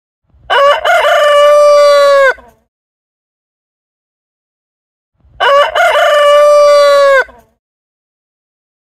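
Rooster crowing twice, about five seconds apart. Each crow opens with a couple of short broken notes, then holds one long note that drops off at the end.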